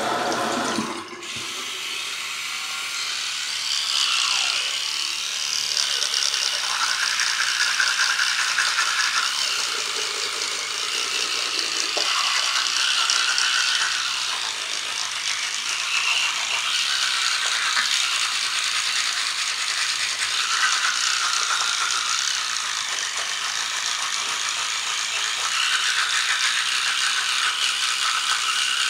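Toothbrush scrubbing teeth close up: a steady, scratchy brushing that shifts in pitch as the brush moves around the mouth. A tap runs briefly at the very start.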